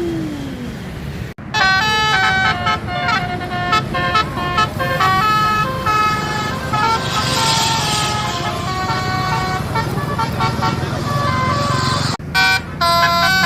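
Bus telolet basuri horn playing a rapid melodic tune of flute-like stepped notes over the bus's engine running. The tune starts abruptly about a second in and breaks off briefly near the end before starting again.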